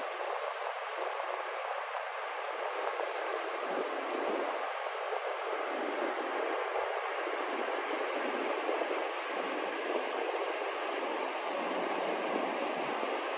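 Steady hiss of surf breaking on a beach, an even wash of noise with no distinct events.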